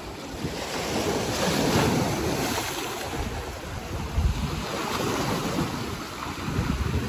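Ocean surf: a wave washing in, swelling and fading over a couple of seconds, with wind buffeting the microphone in low gusts.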